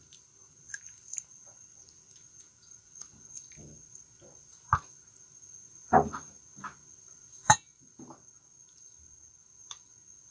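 Raw chicken pieces being worked through a thick gram-flour batter on a plate with a spoon and bare hands: soft wet squelches and small clicks, with three sharper clinks of the spoon against the plate in the second half.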